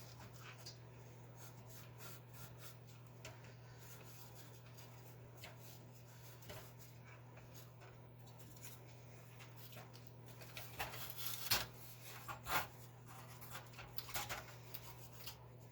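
Hand scrubbing during cleaning: a run of short, scratchy rubbing strokes starting about ten seconds in, over a steady low hum.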